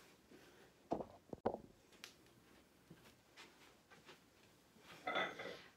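A few faint knocks and clunks as the parts of a Pilates reformer are handled, a sharp one about a second and a half in, with quiet shuffling in between.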